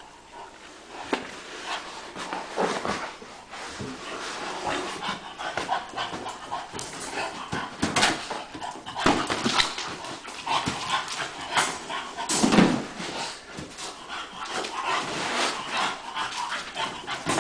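English bulldog breathing hard while nosing and pushing an inflatable vinyl beach ball, with irregular bumps and rubs of the ball against the dog and the floor. The loudest bump comes about two-thirds of the way through.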